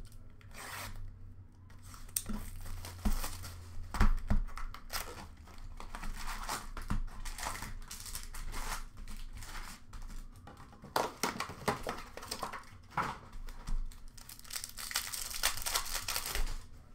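Plastic wrappers of hockey trading-card packs being torn open and crumpled by hand: irregular ripping and crinkling, with a few sharp louder rips about three and four seconds in and the busiest crinkling over the last few seconds.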